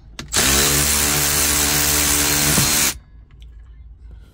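Power driver running for about two and a half seconds, spinning up quickly to a steady speed and then stopping, as it undoes the T50 Torx bolt that holds the seatbelt buckle.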